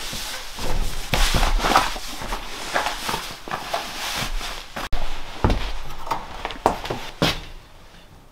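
Footsteps, knocks and clicks of someone moving about and handling things in a small wooden room, irregular throughout, with an abrupt break about halfway.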